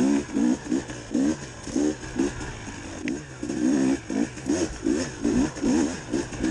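Single-cylinder two-stroke engine of a 2019 KTM 300 XC-W TPI enduro bike, revving up and down in short bursts, roughly two a second, as the throttle is worked on and off.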